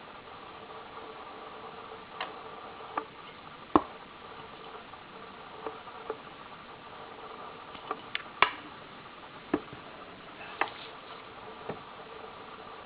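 Sharp clicks and pops at irregular intervals, about a dozen, over a steady hiss with a faint steady hum-like tone.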